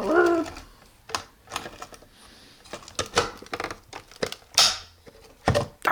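Hard plastic toy pieces clicking and clacking against each other in irregular knocks, about a dozen spread over a few seconds, as they are handled and dropped during a toy tractor pick-up.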